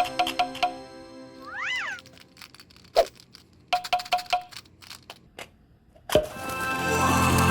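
Marbles clicking and knocking along a wooden-rail and rain-gutter marble run, with two short runs of ringing pings and two louder single knocks about 3 and 6 seconds in. A brief rising-then-falling cry comes about a second and a half in. Music stops at the start and comes back near the end.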